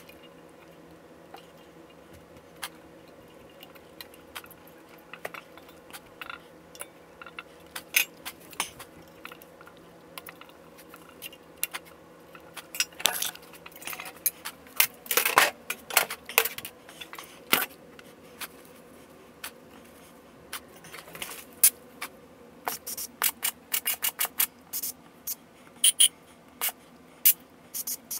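Metal automatic-transmission parts, a clutch drum and its parts, clinking, clattering and scraping as gloved hands take them apart. Scattered sharp clicks, with a busier run of scraping and clatter about halfway through.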